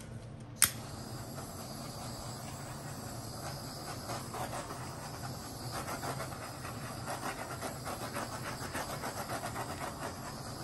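A handheld torch clicks alight about half a second in, then its flame hisses steadily as it is swept over a wet acrylic paint pour to pop the surface bubbles.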